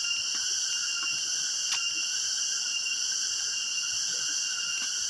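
Steady chorus of insects: an even, high buzzing held at a few fixed pitches without a break, with a few faint ticks.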